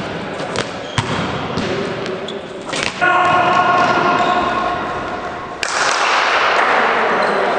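A basketball bouncing and thudding on a sports-hall floor, echoing in the large hall. About three seconds in, a loud steady held tone sets in. Near the end a sudden loud noisy rush replaces it.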